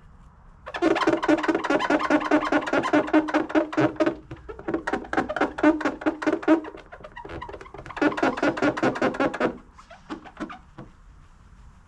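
Hand-held foam buffing pad squeaking as it is rubbed over car paint with polishing compound, in three long stretches of fast rapid-fire squeaks with pauses between.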